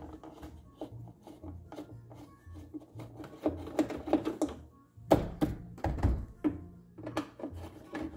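Hand Phillips screwdriver turning a screw out of a plastic truck door panel: a run of small clicks and scrapes, with a louder knock about five seconds in. Faint music with a steady low beat plays underneath.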